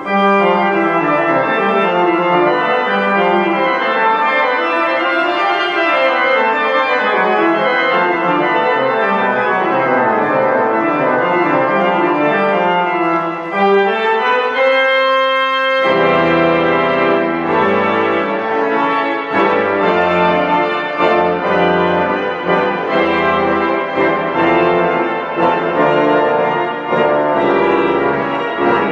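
Pipe organ playing a many-voiced piece with moving lines; about halfway through the music changes to a fuller passage with deep pedal bass notes.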